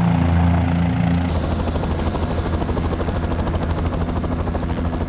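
Kiowa Warrior helicopter in flight: a steady rotor and turbine hum. About a second in, the sound changes to a fast, even rotor chop with more hiss.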